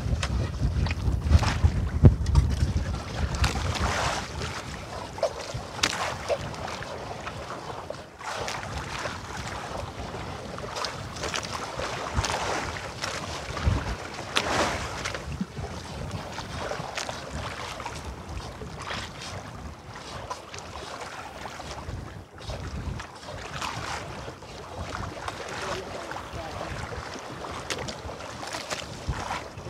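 Wind buffeting the microphone over water washing and splashing against a small boat at sea. The gusts are heaviest in the first few seconds.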